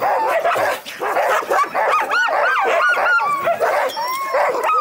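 A team of Alaskan husky sled dogs barking, yipping and whining all at once, many calls overlapping and rising and falling in pitch without a break.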